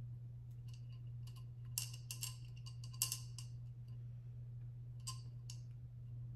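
Small faux pearls dropped one at a time into a glass vase, clicking lightly against the glass and the gel beads inside, with a brief glassy ring on some clicks. A dozen or so irregular clicks over a steady low hum.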